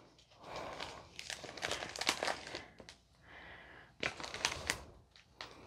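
Diamond painting kit packaging crinkling and rustling as it is handled, in several bursts with short pauses between them.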